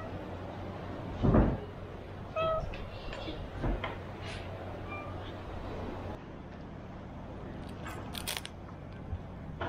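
Calico cat meowing: short meows about two and a half seconds in and again about five seconds in. A loud thump comes about a second in, and a brief crackle near the end.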